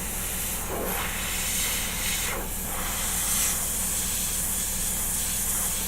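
Airbrush spraying thinned green paint: a steady hiss of air, swelling briefly a few times as the trigger is worked, over the low hum of its compressor.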